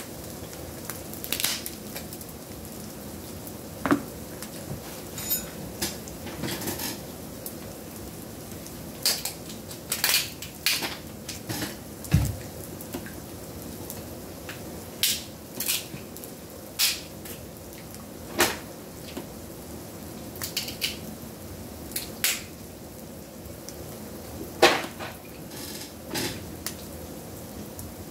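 Red king crab legs being cracked and picked apart by hand: scattered sharp cracks and clicks of shell, some in quick clusters, with light clatter against the plate.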